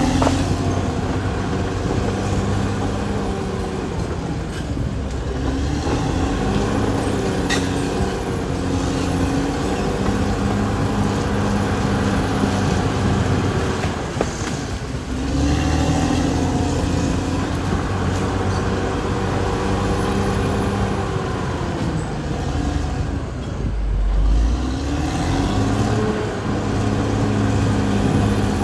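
Caterpillar D6R XL bulldozer's diesel engine running continuously, its pitch sagging and rising again three times.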